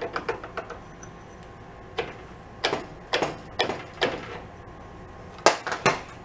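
Sharp metal clinks and taps, about a dozen at irregular spacing, as a metal clutch pulley half is worked on and off a small engine's keyed output shaft. The two loudest come near the end.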